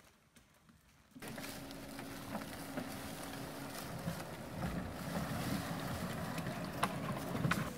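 HDT Hunter WOLF six-wheeled unmanned ground vehicle comes in about a second in, its engine and drive running steadily as it climbs a steep slope. Its wheels make occasional sharp cracks and crackles in the dry leaf litter.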